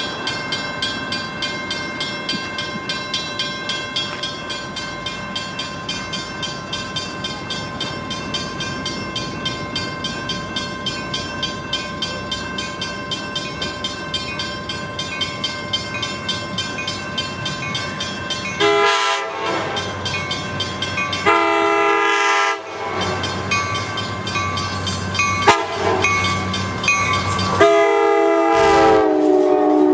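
Mechanical railroad-crossing bell ringing with rapid, steady strikes. About 19 seconds in, an approaching Coaster commuter train's cab car sounds its multi-tone horn in the crossing pattern, long, long, short, long, as the train's rumble grows.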